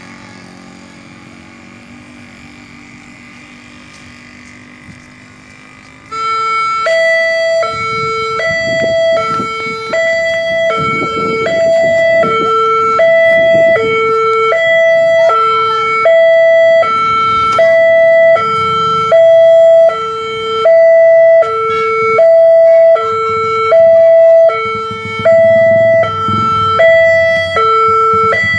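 Railway level-crossing warning alarm sounding: two steady electronic tones alternating high and low, each held about three quarters of a second. It starts abruptly about six seconds in, after quiet street ambience, and signals that the crossing barriers are closing for an approaching train.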